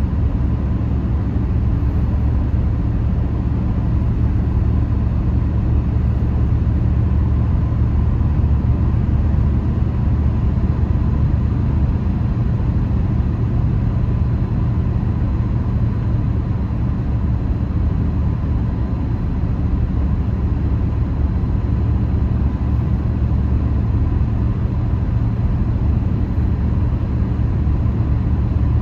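Steady low rumble of a car driving at highway speed, heard from inside the cabin: road and engine noise with a faint steady tone above it.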